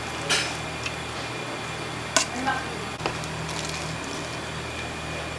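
Kitchen work sounds: a few sharp knocks and clatters of utensils or cookware, the sharpest just after two seconds, over a steady low hum of kitchen equipment.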